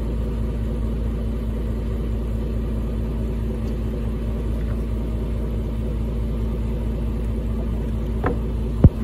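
Small boat engine running steadily at low revs, a low even rumble with a steady hum. A single sharp knock comes near the end.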